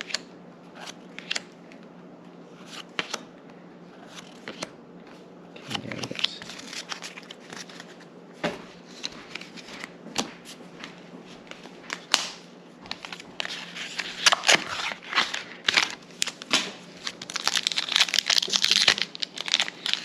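Trading cards handled and slid against each other with scattered light clicks and rustles, then a foil booster pack wrapper crinkling as it is opened, the crackle growing dense over the last several seconds.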